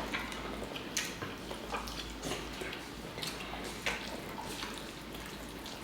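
Close-up wet chewing and mouth sounds of someone eating a juicy meatball sub: a string of soft, irregular smacks and clicks.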